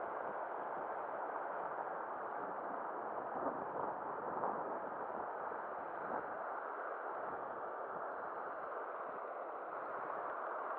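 Steady rush of fast-flowing river rapids, with a few brief faint knocks near the middle.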